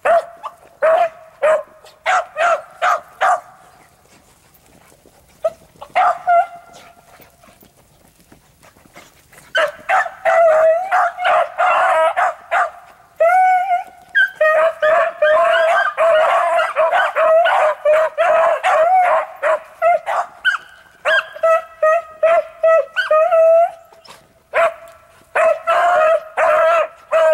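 A pack of beagles, an older hound and several puppies, barking in short, repeated chops while trailing a rabbit scent. The barking comes in runs: it pauses for a few seconds about four seconds in, then several dogs bark over one another through the middle and again near the end.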